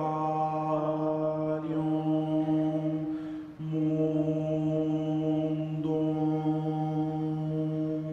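End-credits music: a slow, chant-like drone of long held notes over a steady low tone, with a brief break about three seconds in and a fade beginning at the end.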